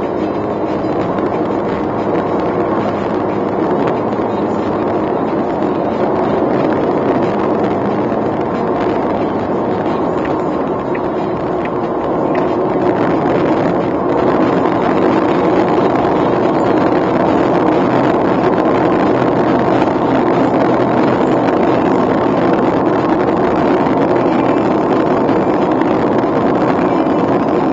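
Steady cabin noise of a Suzuki Alto (HA36S) cruising at expressway speed: tyre and road roar mixed with the hum of its 660 cc three-cylinder engine, which grows a little louder about halfway through.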